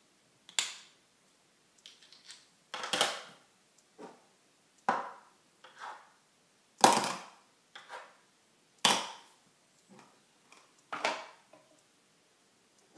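A series of sharp knocks at irregular intervals, about one every second, some in quick pairs, with the loudest near the middle.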